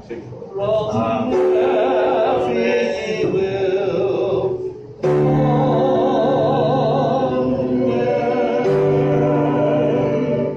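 Small choir singing a hymn, long held notes with vibrato over steady lower held notes; the sound drops briefly just before five seconds in and the next phrase starts.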